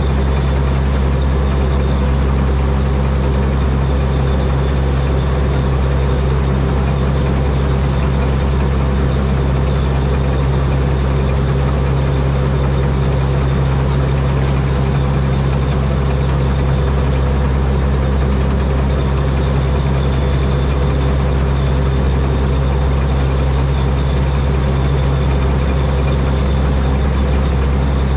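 Rice combine harvester's 225 hp Mitsubishi turbocharged diesel engine running at a steady speed, a loud, unchanging low drone.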